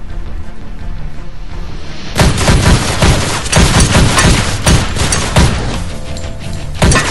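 Soundtrack music with a steady low beat; about two seconds in, a run of loud, heavy booming hits comes in for a few seconds, with one more hit near the end.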